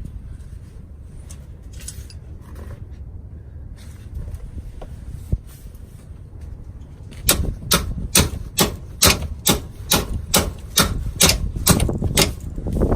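Hammer blows on the steel steering linkage, a fast even series of sharp strikes, about three a second, starting about seven seconds in after a stretch of light clinking.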